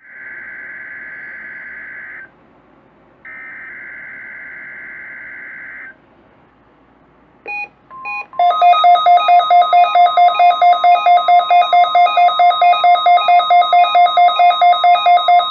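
Weather radio emergency alert test signal: two bursts of warbling digital header tones about a second apart, then a couple of short beeps and a loud rapid beeping alarm, about five beeps a second, over a steady tone, which stops abruptly near the end.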